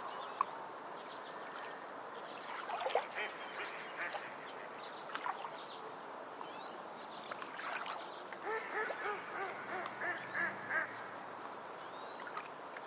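Beach ambience: a steady wash of surf noise with birds calling over it, a few short sharp calls early on giving way to a rapid run of repeated calls in the second half.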